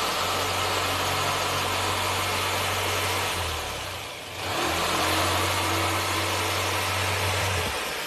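Electric power saw running as it cuts a cedar plank, a steady motor hum under a noisy hiss. It dips briefly about halfway, picks up again, and dies away near the end.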